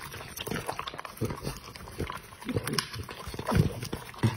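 A dog eating kibble mixed with raw minced meat from a stainless steel bowl: irregular wet chomping and crunching with many sharp clicks, two or three bites a second.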